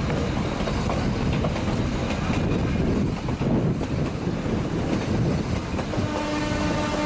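Nilgiri Mountain Railway toy train running on its metre-gauge track, a steady rumble with wheel clatter. Near the end a horn starts to sound, one held tone.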